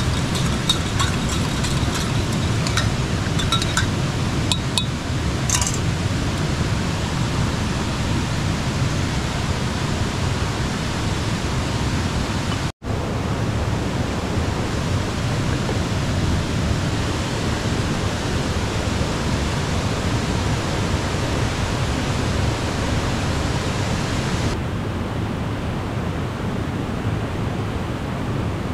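Steady rush of a river flowing past, with a few light clinks in the first few seconds. The water sound breaks off for an instant about halfway through.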